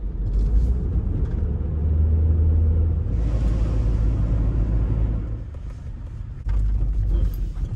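Ford Transit Connect van driving: a steady low rumble of engine and road noise, with a rush of hiss from about three to five seconds in.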